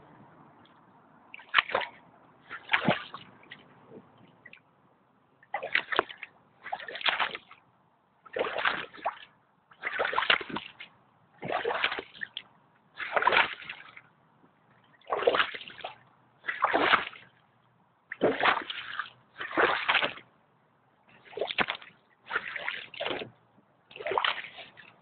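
Hip-wader boots (PRO-line Twin River) wading through shallow water strewn with broken ice, each step a splash, about one every one and a half seconds with a short pause near the start.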